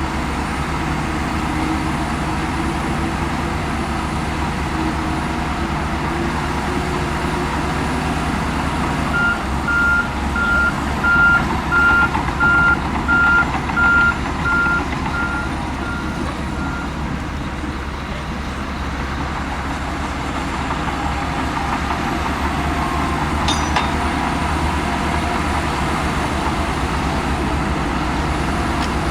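Heavy diesel earthmoving machinery running steadily. About a third of the way in, a reversing alarm beeps about once a second, eight times.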